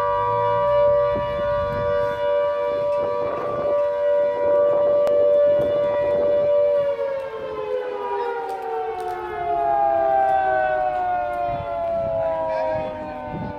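Outdoor civil-defense warning siren sounding a steady two-tone wail, then winding down with a slowly falling pitch from about halfway through.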